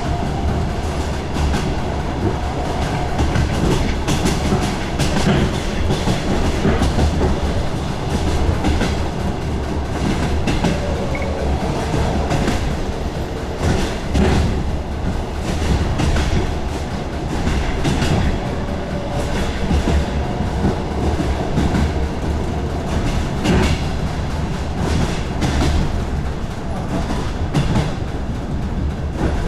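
DR1A diesel multiple unit under way: a steady low rumble of the running train, with the clickety-clack of its wheels passing over rail joints recurring every couple of seconds, often in pairs.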